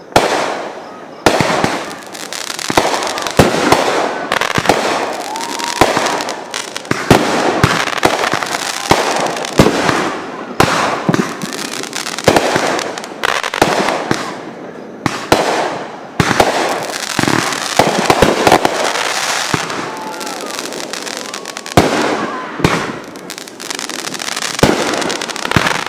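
Aerial fireworks going off in quick succession: many sharp bangs of bursting shells, with crackling between them.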